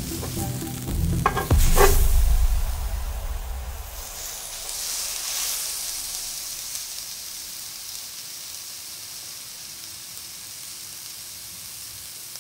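Thin slices of meat sizzling on a hot griddle plate: a steady, hissing sizzle that swells a few seconds in and then settles fainter and even. It opens with a brief low boom from a show sound effect.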